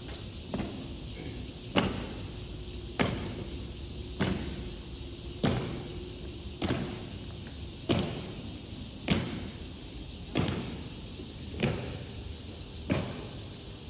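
Honor guards' boots striking the stone pavement in a slow, measured march: a sharp knock about every 1.2 seconds, evenly paced.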